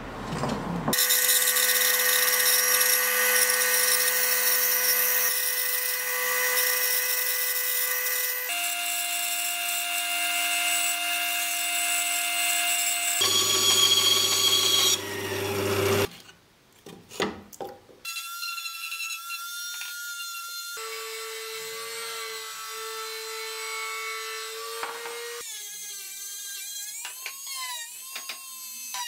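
A string of separate power-tool runs, each a steady whine that cuts off abruptly and starts again at a different pitch. Among them is a benchtop bandsaw cutting plywood, and near the end a handheld rotary tool with a sanding drum, its pitch dipping and recovering as it is pressed into the plywood edge.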